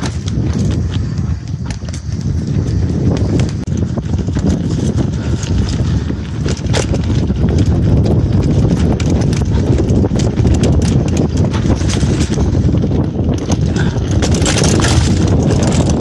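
Entry-level hardtail mountain bike rattling and clattering as it rolls downhill over a rough dirt and leaf-covered trail: rapid, irregular knocks over a steady low rumble.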